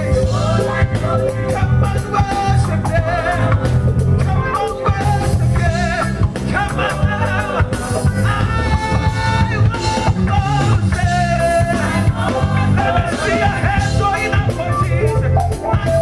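Live church band of drums, bass guitar, lead guitar and piano playing a song with a steady beat, with voices singing along.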